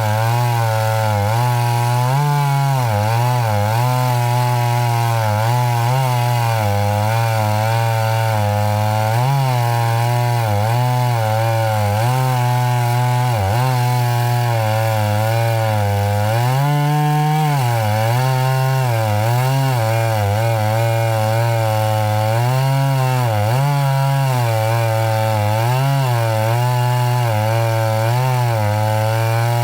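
Two-stroke chainsaw running at high revs, cutting wood. Its pitch dips briefly and recovers every few seconds as the chain loads in the cut.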